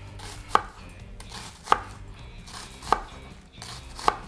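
A Santoku kitchen knife slicing a sweet onion on a maple cutting board. There are four sharp knocks as the blade goes through and hits the board, about one every 1.2 seconds.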